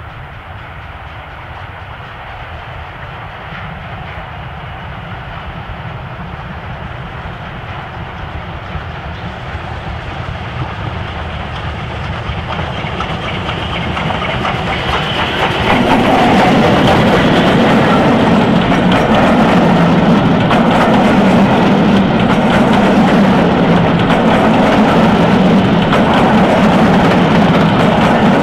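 Steam locomotive No. 7903 'Foremarke Hall', a GWR Modified Hall 4-6-0, approaching with a passenger train, growing steadily louder. It passes close by about halfway through, and the sound jumps up sharply. Its coaches then roll past in a steady loud rumble.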